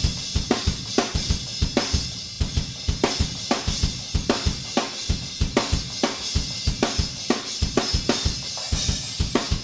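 Multitrack drum recording played back: a steady beat of kick and snare hits, about three or four a second, under a continuous wash of cymbals. The kick and snare hits are triggering a drum sampler through a gate so that they are recorded as MIDI notes.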